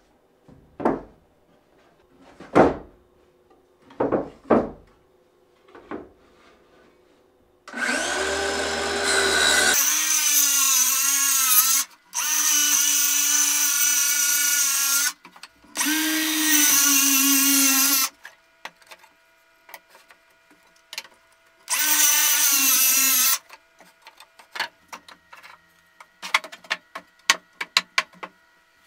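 A cordless DeWalt circular saw runs in four bursts of a few seconds each while it cuts plywood on a sliding crosscut sled. Before the cuts come several hollow wooden knocks as the jig and boards are set down, and after them a quick run of clicks and taps as the pieces are handled.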